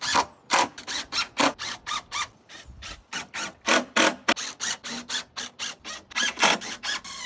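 Repeated rasping strokes of a hand tool on wood, even and quick at about four a second.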